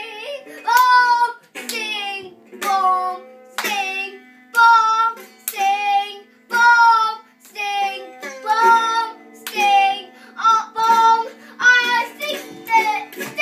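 A boy singing a song over a strummed guitar, in separate held notes about one a second.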